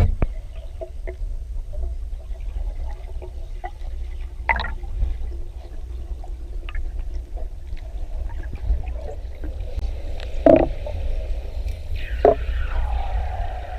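Water noise around the camera: a steady low rumble with scattered clicks and knocks. Near the end a higher tone slides down and then holds.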